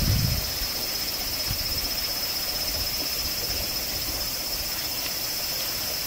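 Cicadas singing in a steady, unbroken high-pitched drone. A low rumble dies away in the first half second.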